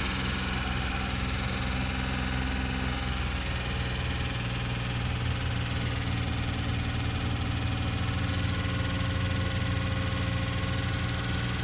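2005 Chevy Equinox's 3.4-litre V6 running steadily, not yet warmed up, with the knocking that the owner says comes on at cold start and clears once the engine is warm.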